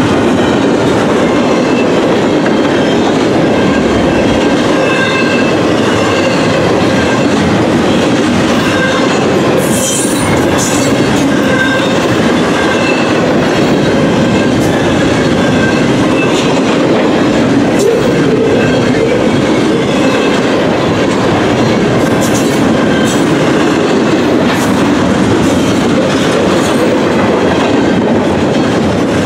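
Double-stack intermodal container train rolling past: a steady, loud rumble of steel wheels on rail. Faint wheel squeal comes and goes, and a few sharp clacks stand out about a third of the way in and again after two-thirds.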